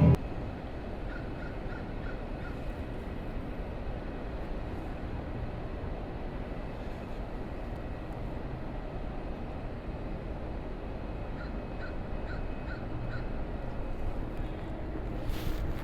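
Steady outdoor background noise with a bird calling in two short runs of about five quick notes each, about a second in and again near eleven and a half seconds in.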